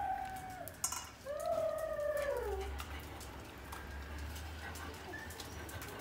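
An animal gives two long whining wails. The first is held steady and then slides down, ending about a second in. The second rises briefly and then slides down, ending a little before the halfway mark.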